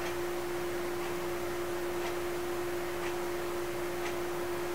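A clock ticking softly about once a second over a steady hum.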